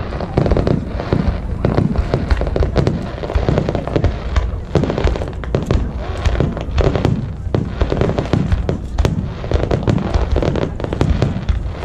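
Fireworks display: a rapid, continuous barrage of deep booming bursts mixed with sharp crackling bangs.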